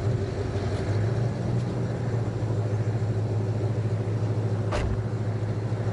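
Pickup truck engine idling steadily as a low, even hum, with one short click about five seconds in.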